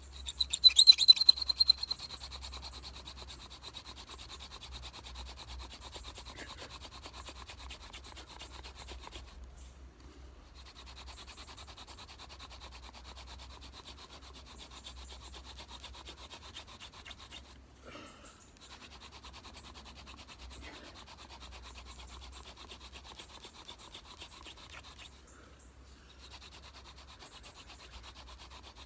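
A ragwort hand-drill spindle, set in a hazel host spindle, rubs into a clematis hearth board as it is spun back and forth between the palms, grinding out dust toward a friction-fire ember. It starts louder, with a high squeak, for the first two seconds, then settles into a steady dry rubbing broken by three short pauses.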